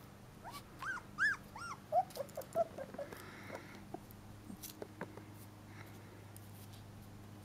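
Four-week-old Dalmatian puppy whimpering. About four short, high whines that rise and fall come in the first two seconds, then a quick string of shorter, lower whimpers, followed by a few faint clicks.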